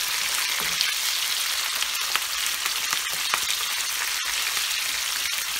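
Cubed onion and capsicum sizzling in hot oil in a frying pan, stirred with a wooden spatula, with a few light scrapes against the pan.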